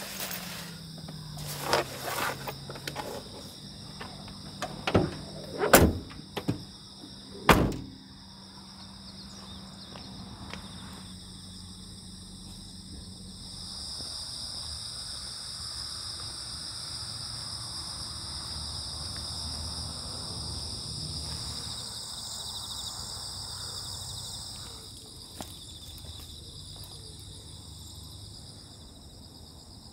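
A handful of loud thumps and knocks in the first eight seconds, then a steady, high chirring chorus of insects that swells for a while in the middle.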